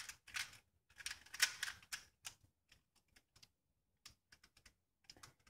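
A 2x2 puzzle cube being turned by hand: quick plastic clicks of its layers turning, a dense run over the first two seconds or so, then sparser, fainter ticks.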